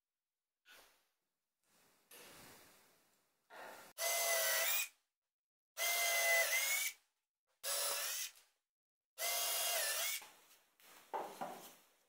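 Cordless drill-driver driving screws into the corners of the grinder's wooden body: four short runs of the motor, each about a second long, with a steady whine. Softer handling scrapes come before the first run and after the last.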